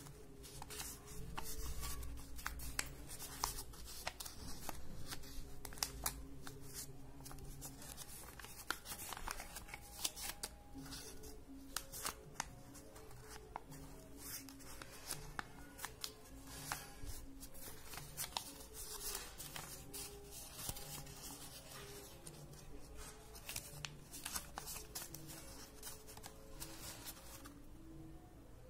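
Paper strip being folded and creased by hand, with irregular soft crinkles, rustles and clicks of the paper. Faint background music runs underneath.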